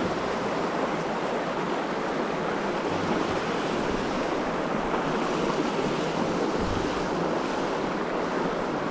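Mountain creek water rushing steadily, an even unbroken rush, with a couple of brief low bumps about three and seven seconds in.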